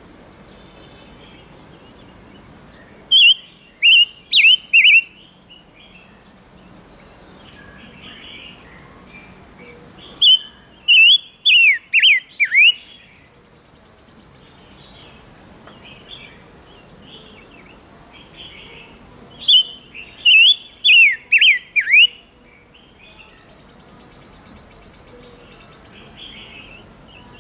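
Silver-eared mesia (chim ngũ sắc) singing: three loud phrases of four to six quick, downward-sweeping whistled notes, spaced several seconds apart, with soft chatter between them.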